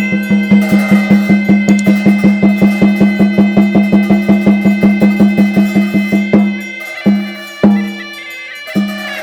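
Traditional music: a drum beaten fast and evenly, about five strokes a second, under a steady reedy wind drone with held high notes. A little over six seconds in, the fast beat stops and gives way to a few single, spaced drum strokes.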